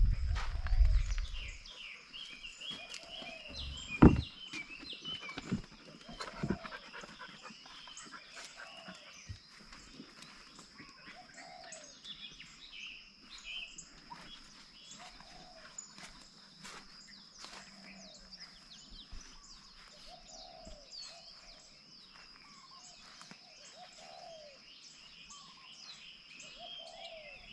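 Birds chirping and calling, with a low call repeating about every two seconds over a steady high-pitched whine. A rumble in the first second or two and a sharp knock about four seconds in.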